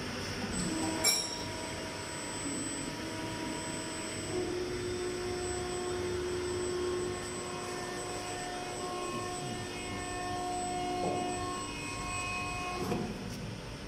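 Hydraulic press's pump and motor running, a steady whine made of several held tones that shift as the machine works. A single sharp knock sounds about a second in.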